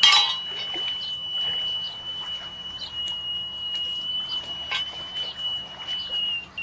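Electronic carp bite alarm sounding one continuous high tone, typical of line running off in a fish's take. A sharp knock opens it, with a smaller click about five seconds in.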